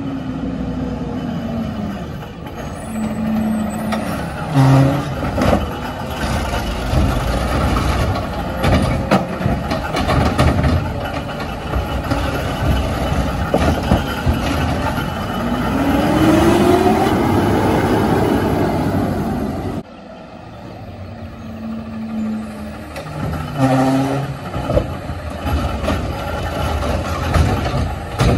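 CNG Peterbilt 520 garbage truck with a McNeilus ZR automated side loader running, with a few short knocks and a rising hydraulic whine about two-thirds through. The level drops sharply a little later.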